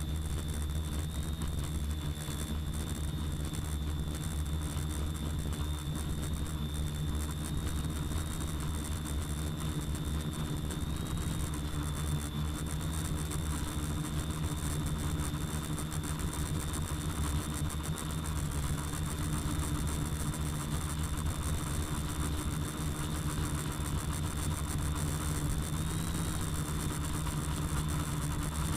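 Quadcopter's electric motors and propellers running steadily, heard from the camera on board: a constant hum with a thin high whine that rises briefly in pitch a few times.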